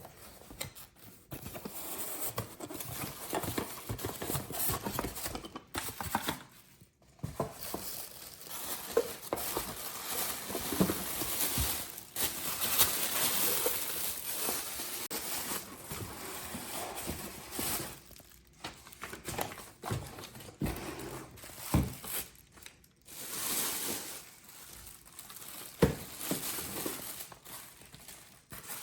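Packaging being opened and handled: crinkling plastic and paper wrapping, some tearing, and occasional knocks as parts are pulled from the box, broken by a few short pauses.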